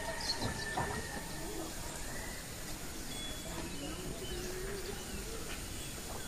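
Village outdoor ambience: scattered faint bird calls, some low and cooing, over a steady background hiss.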